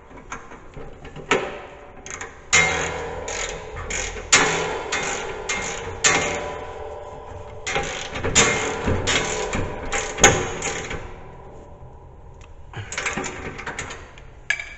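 Hand ratchet wrench clicking and metal clanking as the plow mount's bolts are worked loose, in irregular bursts with a short lull near the end.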